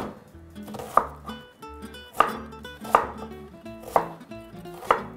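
Kitchen knife chopping onions on a cutting board: six sharp strikes, about one a second.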